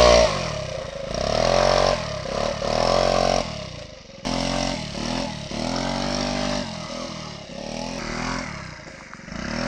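Small motor scooter engine revved hard in a series of surges, each rising and then dropping back, about six or seven in all.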